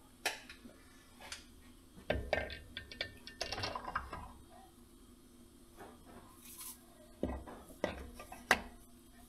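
Metal hand tools and engine parts clinking and clanking as they are handled: scattered sharp knocks, a busier cluster of clinks between about two and four seconds in, and three more knocks near the end.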